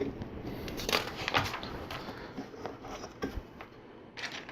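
Plastic LEGO pieces being handled and pressed together, giving several scattered clicks and knocks.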